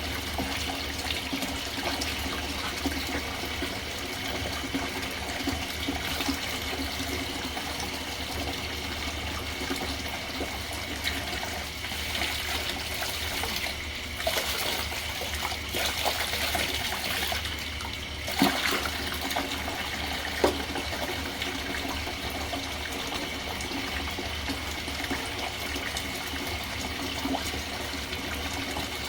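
Water running steadily from a tap, with a couple of sharp knocks about two-thirds of the way through.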